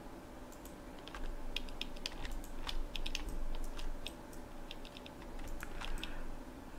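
Computer keyboard keys and mouse buttons clicking in an irregular run of taps, some in quick clusters.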